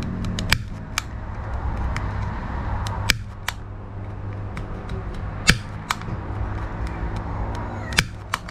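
Marble-gun trigger system fired four times, each firing a pair of sharp snapping clicks about half a second apart as it sparks across the wire ends. It is working properly. A steady low hum lies under the clicks.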